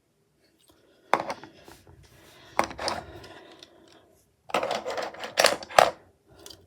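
Small plastic Lego bricks clicking and clattering as they are handled, in a few separate bursts, the busiest about two-thirds of the way through.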